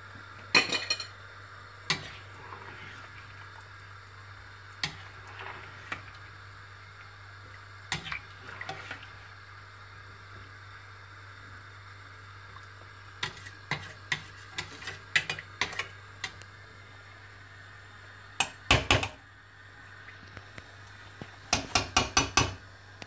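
A spoon and a slotted spatula stirring a stainless steel pot of curry with potatoes, knocking and scraping against the pot's sides in irregular clinks, with a quick run of knocks near the end. A steady low hum sits underneath.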